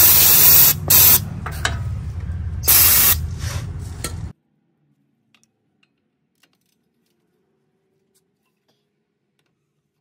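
Aerosol penetrating lubricant hissing from the can in several short bursts onto tight, rusted caliper bracket bolts to help free them. The sound cuts off abruptly about four seconds in.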